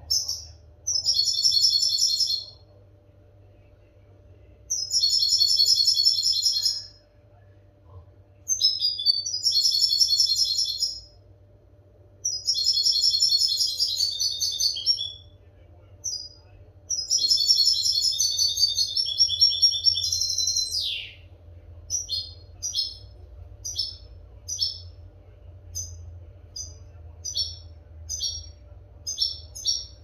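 European goldfinch singing a clean, fault-free song of the kind used to tutor young goldfinches. It gives five long twittering phrases of two to three seconds each with short pauses between them. A falling sweep follows about 21 seconds in, then a run of short separate notes, about one and a half a second.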